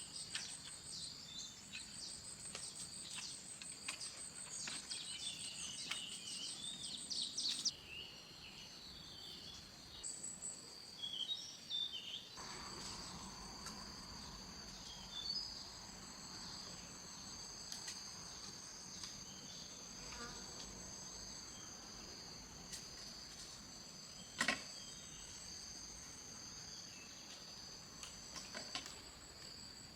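Insects chirring steadily in a high, even drone, with scattered short chirps in the first few seconds and a single sharp click about two thirds of the way through.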